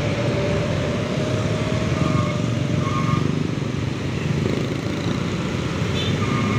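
Congested road traffic at close range: many motorcycle engines and bus engines idling and creeping forward together, a steady, loud mix of engine noise with no single event standing out.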